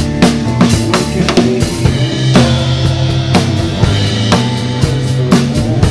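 Live rock band playing, with a drum kit's kick, snare and cymbals keeping a steady beat over held bass notes.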